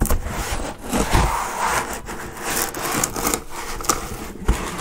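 Packaging being handled as a laptop's shipping box is unpacked: rubbing and scraping of the box and its padding, with irregular knocks.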